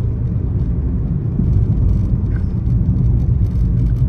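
Steady low rumble of a moving car, its engine and tyres on the road, heard from inside the cabin.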